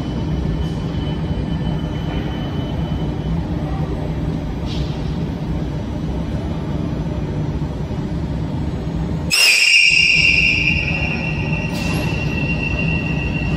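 Renfe Rodalies series 447 electric train standing at an underground platform, its equipment giving a steady low hum. About nine seconds in a loud high-pitched signal tone starts, loudest for the first second and then holding more softly for a few seconds: the departure warning before the train pulls out.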